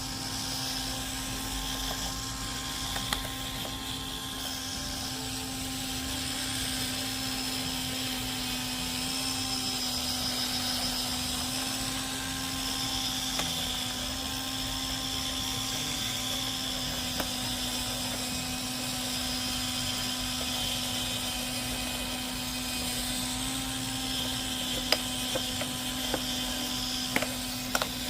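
A small electric motor running steadily with a constant hum and whine, with a few short clicks about three seconds in and near the end.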